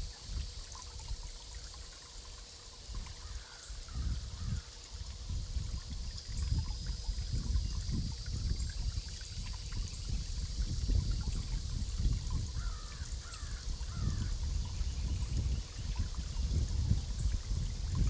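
Water trickling and gurgling, with a steady high hiss over it. A bird calls briefly about four seconds in and again three times in quick succession past the middle.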